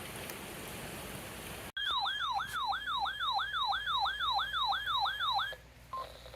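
Steady rain hiss that cuts off abruptly, followed by a loud electronic siren-like alert tone: a warble of quickly falling pitch sweeps, about three a second, for nearly four seconds, then a single short beep. The tone signals an incoming weather warning.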